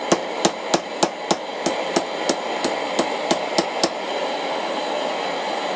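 Blacksmith's hammer striking hot 1/4-inch round steel on an anvil, about three ringing blows a second, bending the J hook down over the anvil. The blows stop about four seconds in, leaving a steady hiss.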